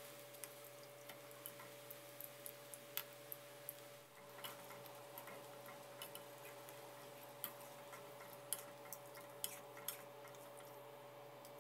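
Faint crackling of hot oil in a wok, with scattered sharp pops and ticks, as a battered fritter of shredded papaya, taro and shallot deep-fries.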